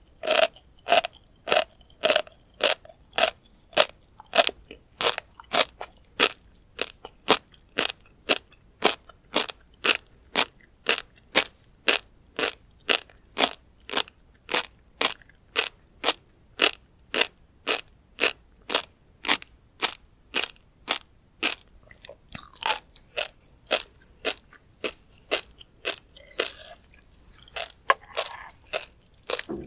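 Close-miked chewing of tobiko (flying fish roe), the small eggs crunching and popping at about two chews a second. The chewing turns softer and less regular in the last several seconds.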